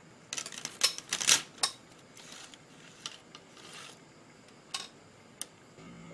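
A quick run of sharp clicks and light clatter in the first two seconds, then two soft rustles and a few scattered single clicks.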